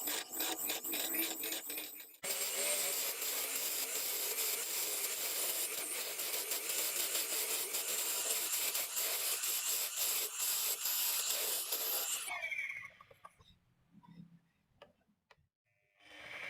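A cutting tool scraping and shaving wood spinning on a homemade lathe: rhythmic scraping strokes at first, then a steady rough shaving hiss. It stops about twelve seconds in, leaving a few faint clicks, and starts again near the end.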